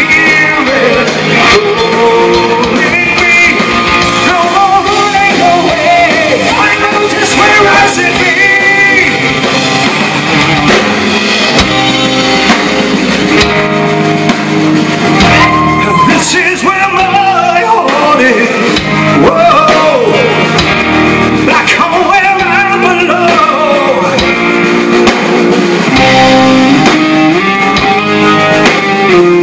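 Live hard rock band playing loudly: electric guitars with bending lead notes over a drum kit, with a sung lead vocal.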